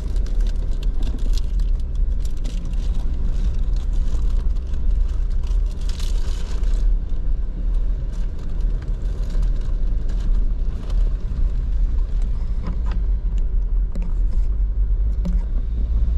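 Steady low engine and tyre rumble inside a Jeep's cab as it drives a trail. For the first several seconds, and now and then after that, crackling and clicking sounds sit over the rumble.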